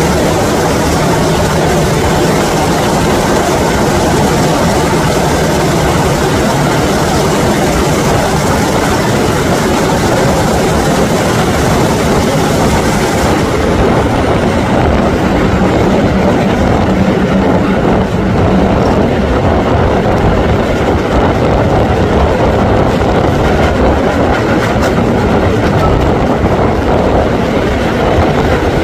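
A heritage diesel train, double-headed by a Class 24 and a Class 26 locomotive, running through a tunnel. Heard from a carriage window as a loud, steady din of wheels on the rails and diesel engines.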